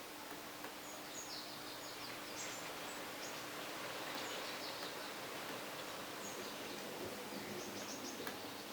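Faint rustle of a synthetic Chinese brush stroking watercolour on cold-pressed paper, under a low steady hum, with short high chirps now and then.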